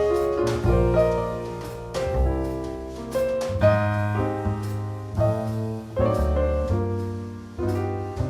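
Piano music playing chords over a low bass line, each note struck and dying away.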